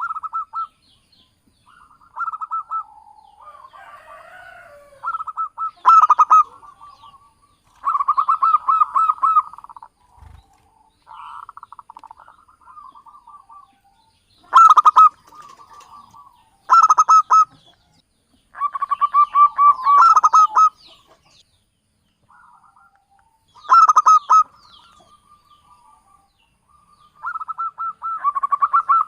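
Zebra doves (Javanese perkutut) cooing, used as a lure call. The calls come as repeated phrases of quick, pulsed coo notes, one every two to three seconds, some loud and some faint.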